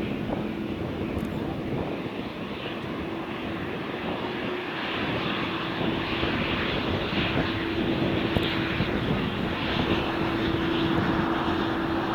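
Jet airliner's engines running as it passes: a broad rushing noise with a steady hum, slowly getting louder.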